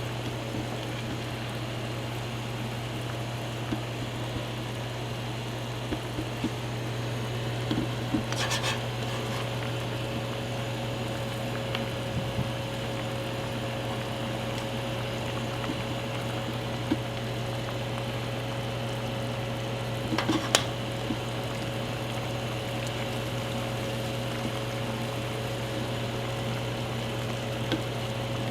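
Pot of kare-kare broth boiling steadily under a constant low hum, with a couple of short clicks, twice, about 8 and 20 seconds in.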